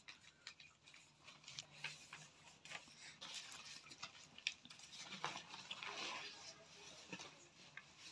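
Faint rustling of notebook paper, with scattered light clicks and ticks, as handwritten pages are turned and handled; the rustle is densest in the middle.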